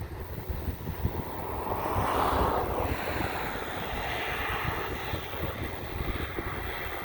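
Jet engines of an Airbus A320neo airliner passing by, a rushing roar that swells to its loudest about two to three seconds in, then carries on with a higher hiss. Wind buffets the microphone throughout.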